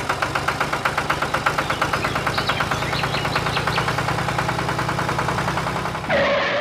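Engine idling with a steady rhythmic chug, about six beats a second; near the end its sound changes briefly and then it stops abruptly.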